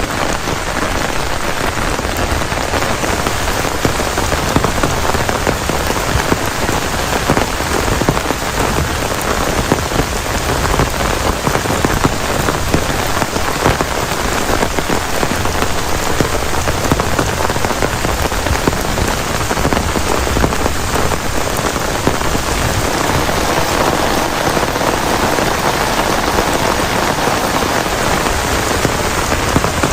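Heavy rain falling steadily, a dense loud patter of drops hitting a surface with no let-up.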